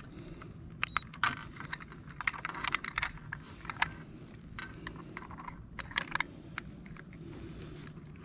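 Light, scattered clicks and clinks of a digital hanging scale's steel hook being fitted onto a plastic fish-lip grip, thickest in the first few seconds and again about six seconds in, over a low steady background noise.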